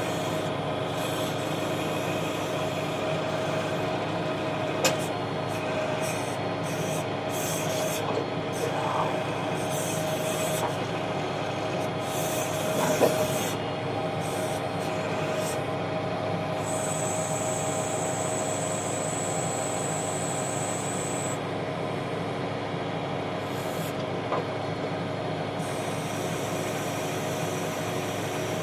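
Tractor engine running steadily, driving the BHX PTO backhoe's self-contained hydraulic pump as the backhoe digs, with a high hiss that comes and goes and a couple of sharp knocks about 5 and 13 seconds in.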